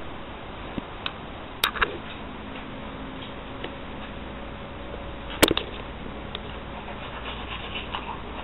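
Handling noise from a handheld camera: a few sharp clicks and knocks, the loudest about five and a half seconds in, over a steady low hiss.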